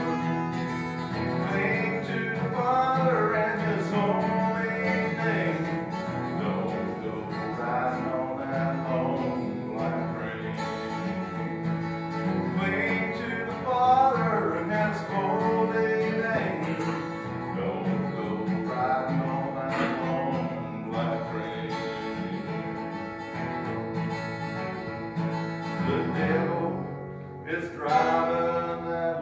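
A country song played on an acoustic guitar with steady strumming, and a voice singing the melody over it.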